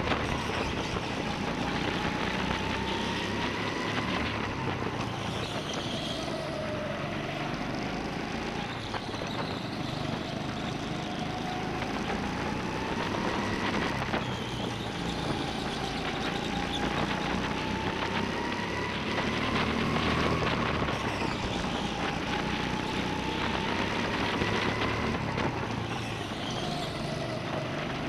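Go-kart motor running at racing speed as heard from on board, its whine rising and falling repeatedly as the kart speeds up and slows through the corners, over a steady rushing noise.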